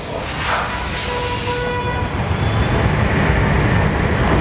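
A low, steady rumble of a passing vehicle, with the hiss of a hand trigger spray bottle in the first second or two.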